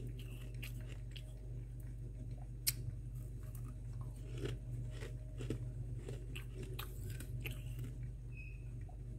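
Close-up crunching and chewing of soft, powdery freezer frost: irregular crisp crunches, with one sharper crack about two and a half seconds in. A steady low hum runs underneath.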